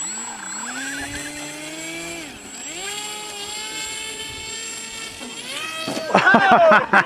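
Electric motor of a radio-controlled model whining, its pitch rising, dipping and climbing again as the throttle changes. About six seconds in it turns louder and rougher.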